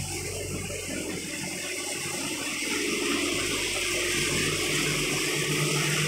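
Wet concrete pouring and rushing down the discharge chute of a JOHN 2.0CM self-loading concrete mixer, a steady flowing sound, with the mixer's engine running low underneath. The flow grows somewhat louder about halfway through.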